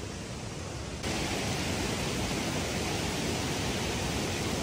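Steady rushing water of a waterfall, an even hiss with a deep low rumble, which gets louder about a second in.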